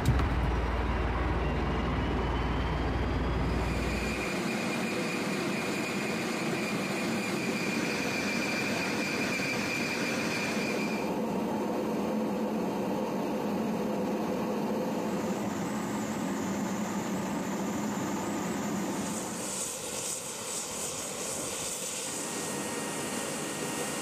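Steady aircraft engine noise, a dense drone with a high whine. A deep rumble underneath drops away about four seconds in, the whine stops about eleven seconds in, and the sound thins somewhat near the end.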